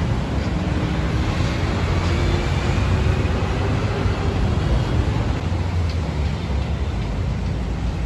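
Steady low rumbling background noise, even throughout with no distinct events.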